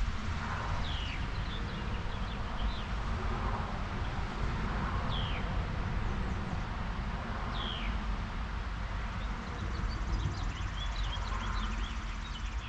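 Birds chirping over a low steady rumble: three short falling calls a few seconds apart, then a run of quick chirps near the end.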